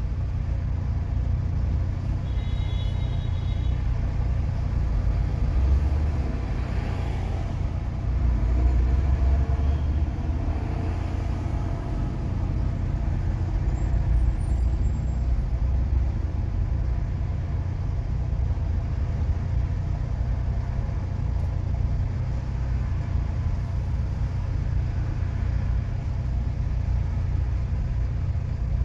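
A road vehicle driving through city streets: a steady low rumble of engine and road noise that swells slightly a few times.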